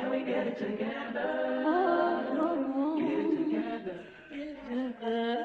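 Background music: a song's sung vocals, with long held and gliding notes.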